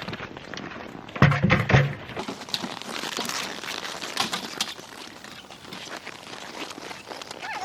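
Hay or straw rustling and crunching as horses are fed. About a second in, a short burst of several loud, heavy knocks rings out.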